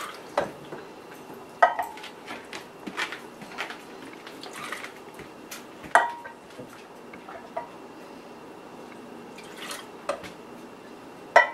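A small scoop knocking against the rim of a gallon jar and the plastic bowl of a food processor as cream is ladled from the jar and poured into the bowl, with soft pouring and scraping between. Four sharp knocks stand out: about half a second in, about a second and a half in, about six seconds in, and near the end.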